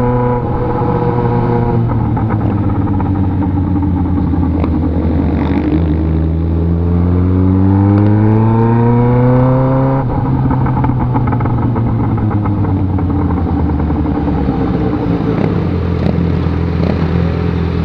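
Motorcycle engine running under way. About six seconds in, the revs climb steadily for several seconds, then drop sharply at about ten seconds before settling back to a steady pitch.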